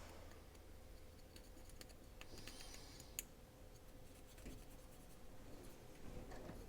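Faint scratching and rubbing of a cotton swab scrubbing dirt out from inside a folding knife's handle, with light ticks and one sharp little click about three seconds in.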